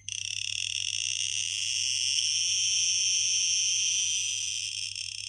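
Handheld radiation detector sounding its alarm held against a uraninite specimen: rapid clicks in the first moment run together into a loud, continuous high-pitched tone. The count rate is so high that the meter goes into overload.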